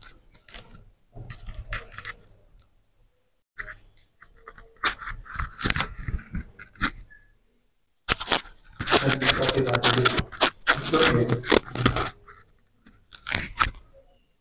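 Fabric rustling and tearing as the straps of a bib vest are pulled open and fastened, in short rasps with pauses, busiest and loudest from about eight to twelve seconds in.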